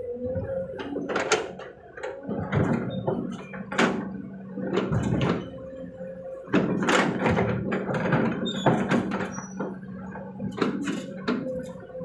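Kobelco SK200 excavator working under a steady machine hum, with a dozen or more irregular thuds and knocks as its bucket loads soil and rock into a dump truck.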